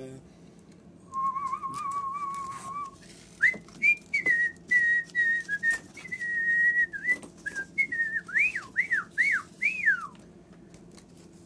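Whistled birdsong imitation: a wavering whistle starts about a second in, then a higher warbling whistle follows and ends in a few quick downward swoops, with scattered light clicks.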